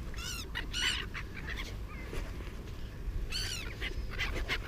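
Seagulls calling: short pitched calls, two close together about a quarter second and one second in, and another about three and a half seconds in, over a steady low rumble.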